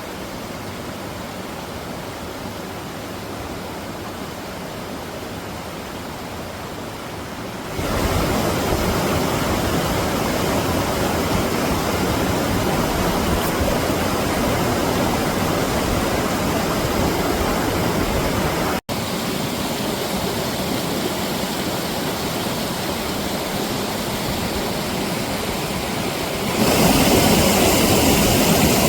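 Mountain stream water rushing over rocks, a steady rush with no break in it. It steps louder about eight seconds in and again near the end, with a split-second dropout between the two.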